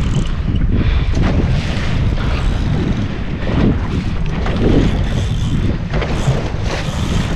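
Wind buffeting the microphone, with sea water sloshing against the boat's hull.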